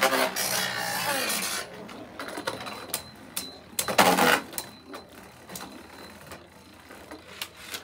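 Two Beyblade Burst spinning tops whirring and scraping across a plastic stadium right after launch, the whir loudest for the first second or so and then fading. Scattered sharp clacks as the tops strike each other and the stadium wall, with a louder clattering clash about four seconds in.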